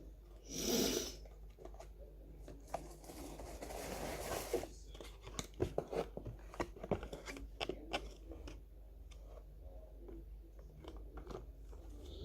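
Product packaging opened by hand. A short loud rustle comes about half a second in, then a longer stretch of tearing and crinkling, then a quick run of clicks and taps as the boxes are handled.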